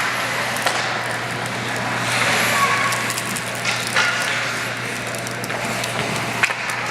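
Ice hockey game in a rink: skates scraping across the ice, with sharp clicks and knocks of sticks and puck a few times and faint distant voices, over a steady low hum.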